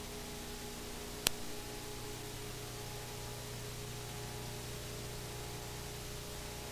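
Steady tape hiss with a low hum from the blank soundtrack of a VHS tape, and one sharp click about a second in.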